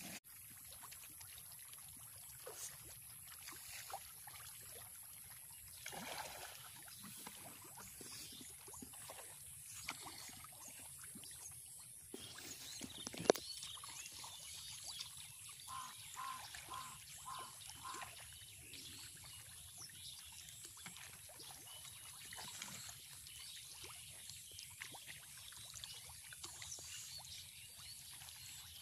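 Faint pond-side ambience: small trickling and plopping water sounds with scattered light ticks and one sharp click near the middle. A bird calls a quick run of about five short notes a little past halfway.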